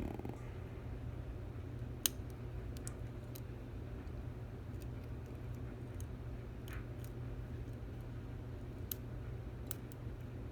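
Scattered light clicks of a lock pick and tension wrench working the pin stack of a Stanley 24/7 padlock, the sharpest about two seconds in, over a steady low hum.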